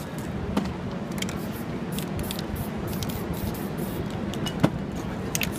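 Short hisses of aerosol spray paint and the handling of cans and paper, with a light click about half a second in and a sharp knock near the end, over a steady low street rumble.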